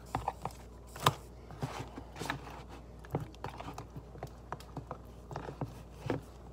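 Light, irregular taps and clicks of hands handling bread in a plastic dish of egg wash for French toast, with a sharper knock about a second in and another near the end.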